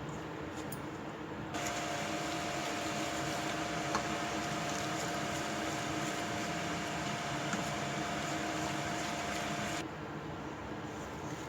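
Electric hand mixer beating cake batter, its motor running at a steady pitch with a whine. It switches on about a second and a half in and stops abruptly near the end.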